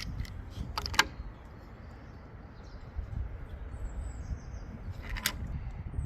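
Outdoor background with a steady low rumble and faint bird chirps, broken by two sharp clicks or knocks, the louder one about a second in and another about five seconds in.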